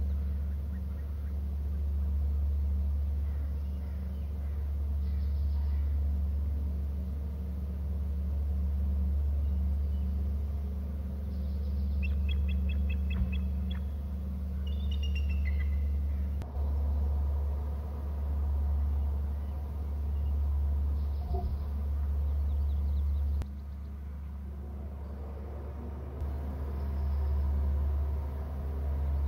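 Steady low rumble on a nest camera's outdoor microphone, rising and easing gently every couple of seconds. Midway, a bird gives a quick run of high chirping notes, then a few falling notes.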